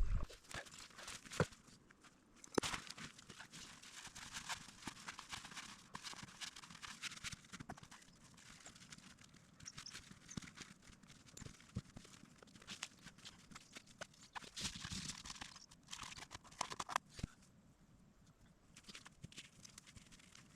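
Footsteps pushing through dense, tangled undergrowth: irregular crunching, rustling and crackling of twigs and vegetation underfoot.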